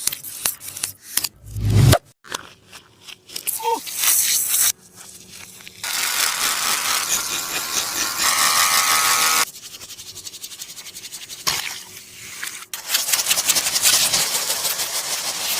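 Taba squishy being squeezed and handled: clicks and a low thump at first, then long stretches of crinkly, crackling scraping.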